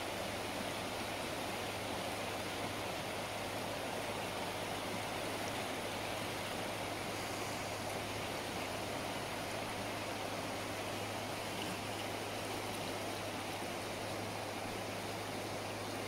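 Shallow river rushing over rocks in riffles, a steady, even sound of running water.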